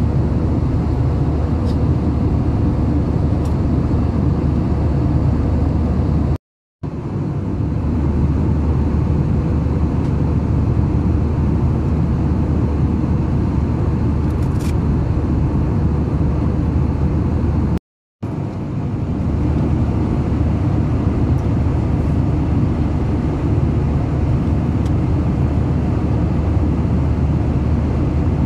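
Steady cabin noise of a jet airliner in flight: a loud, even rumble of engines and airflow, cut by two brief complete dropouts about six seconds in and again near the middle.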